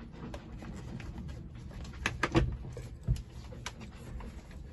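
Folding helm seat being folded up: several knocks between about two and four seconds in, the loudest about two and a half seconds in, over a low steady rumble.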